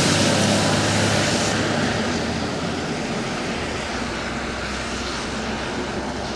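Fire engine driving away just after its siren has stopped: engine and road noise slowly fading, the hiss dropping off about a second and a half in.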